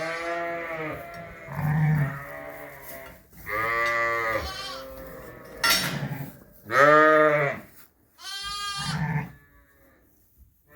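Sheep bleating repeatedly: about six loud, wavering calls, some overlapping, that die away near the end.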